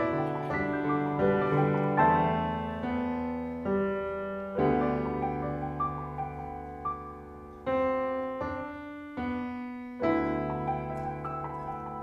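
Grand piano played four hands: slow chords struck every second or two, each ringing on and fading away before the next.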